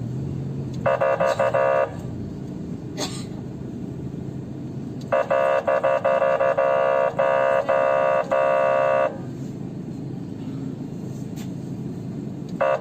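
The 'quack' (kryakalka) horn signal of an SGU Elect emergency-vehicle siren through its horn loudspeaker: buzzy, steady-pitched blasts with no rise or fall. There is a short choppy burst about a second in, a longer run of about four seconds in the middle, and another burst starting near the end, over a low steady hum.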